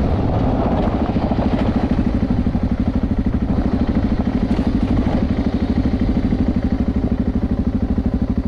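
BMW G650 Sertão's single-cylinder four-stroke engine running at low revs as the bike is ridden, with an even, fast thumping of about ten beats a second.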